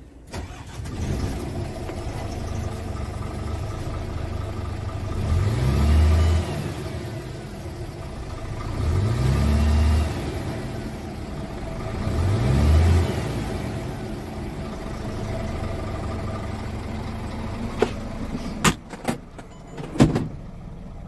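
Scania R450 truck's 13-litre inline-six diesel running at idle, blipped three times in quick revs that rise and fall, each a few seconds apart. A few sharp knocks come near the end.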